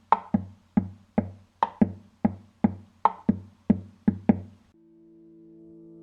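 Instrumental downtempo electronic music: a drum-machine beat of sharp percussive hits over a low bass line, which stops suddenly about three-quarters of the way through and gives way to a held synthesizer pad chord swelling in.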